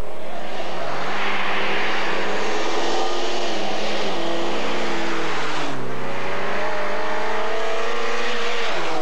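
Rally car engine revving hard as it accelerates, its note climbing. About two thirds of the way through the pitch drops sharply with a gear change, then climbs again.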